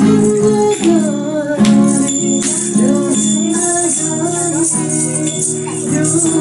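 Acoustic guitar strummed to a sung song, with hand claps keeping time and a bright jingling rattle shaken along.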